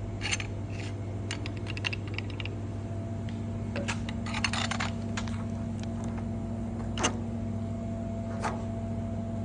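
Piher double-action piston clamp clicking as its mechanism is worked by hand: quick runs of light metal clicks, then two single clicks near the end. A steady low hum runs underneath.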